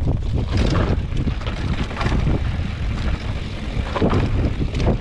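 Wind buffeting the microphone of a camera carried by a moving rider, a constant low rumble, with frequent knocks and rattles from riding over rough trail.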